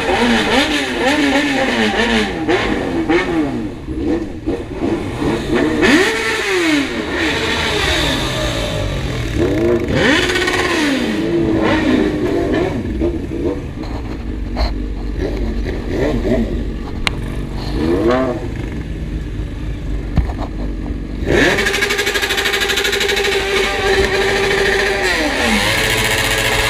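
Several motorcycle engines revving up and down, their pitches rising and falling over one another. Later, one engine holds steady high revs for a few seconds, then drops back near the end.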